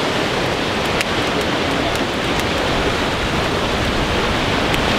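Steady rushing of ocean surf churning below the pier, mixed with wind buffeting the microphone, with a few faint ticks on top.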